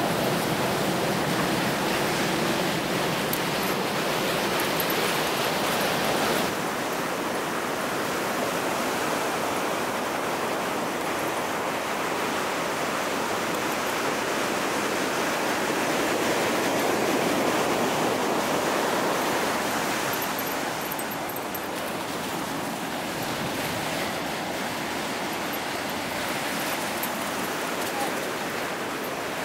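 Steady rush of ocean surf, an even noise with no distinct barks or voices standing out.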